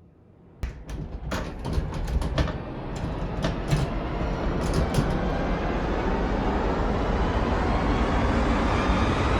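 A series of sharp clicks and knocks over the first few seconds, then a vehicle's rumbling noise that swells steadily louder.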